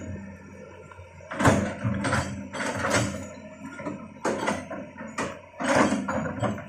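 Hitachi crawler excavator running while it clears brush, its steady engine hum broken by repeated bursts of creaking and cracking, a few each second, as its bucket pushes through branches and small trees.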